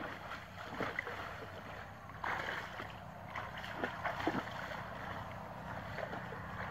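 Shallow muddy water splashing and sloshing as people wade and haul a fine-mesh net through it, with a louder burst of splashing a little past two seconds in.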